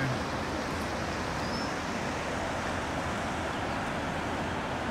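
Steady rush of river water pouring over a whitewater drop in the Truckee River.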